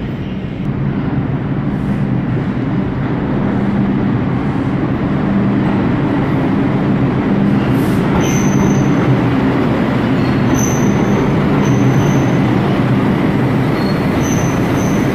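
New York City subway train approaching and running into an underground station, a steady rumble that grows louder. From about halfway through, short high-pitched wheel squeals come and go as the cars enter the station.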